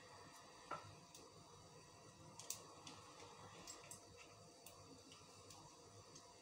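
Faint, scattered clicks and taps of a small knife cutting boiled potatoes by hand, with the pieces dropping into a glass bowl. The loudest tap comes about two and a half seconds in.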